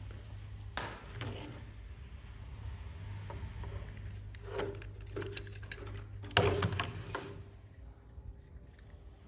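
Irregular clicks and knocks of hands working on a car's air-conditioning switch panel while changing its bulbs, the loudest clatter about six seconds in, over a steady low hum.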